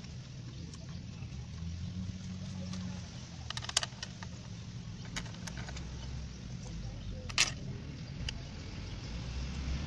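A few small, sharp metal clicks and clinks as bolts are handled and fitted into a motorcycle engine's side cover by hand, the two loudest about four seconds apart, over a low steady rumble.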